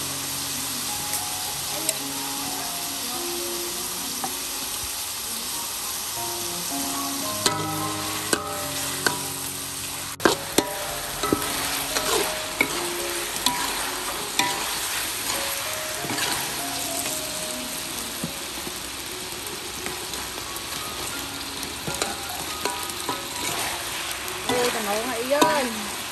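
Food sizzling in a hot wok while a metal spatula stirs and scrapes through it, with sharp clanks of the spatula against the wok from about seven seconds in.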